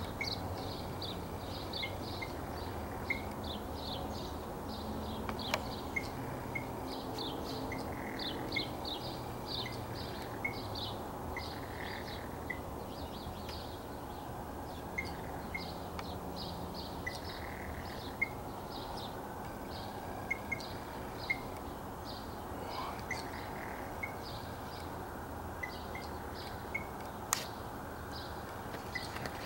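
Blue jay calling: long runs of short, rapid, high chirps mixed with clipped lower notes, over steady background noise.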